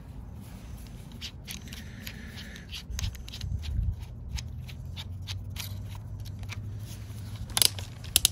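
Small clicks and rattles of a drill's chuck being worked and a 1/4-inch bit being fitted, with a low steady hum starting about four seconds in and two sharp clicks near the end.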